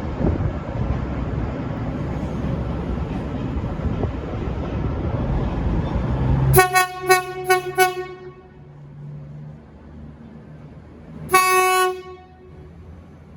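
V/Line VLocity VL22 diesel multiple unit sounding its low-note horn: four short toots in quick succession about halfway through, then one longer toot near the end. Before the horn, a loud steady rumble cuts off abruptly as the toots begin.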